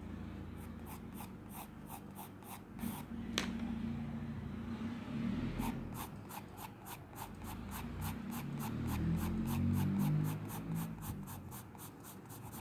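Graphite pencil scratching across textured drawing paper in quick, evenly repeated strokes, about four a second, with a short break after about three seconds before a longer steady run.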